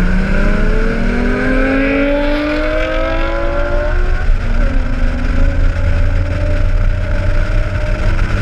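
A car engine accelerating, its pitch climbing steadily for about four seconds, dropping once at a gear change, then climbing again over a loud low rumble.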